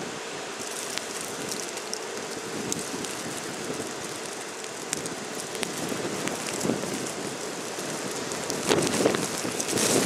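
Blizzard wind blowing steadily through a snowy street with a hiss of wind-driven snow, rising into stronger gusts near the end.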